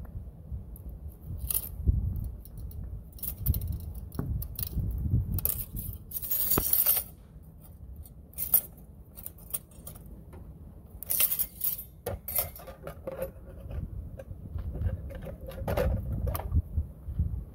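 Scattered light clinks, scrapes and knocks as an engine oil dipstick is drawn from and pushed back into its tube and a plastic funnel is handled in the oil filler neck while oil is topped up. A low handling rumble sits over the microphone.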